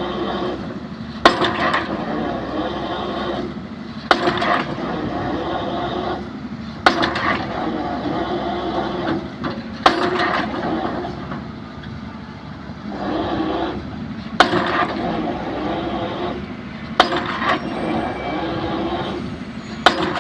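Excavator drop hammer striking a concrete pile, seven sharp blows about every three seconds with a longer pause midway, while the excavator's engine runs between strikes.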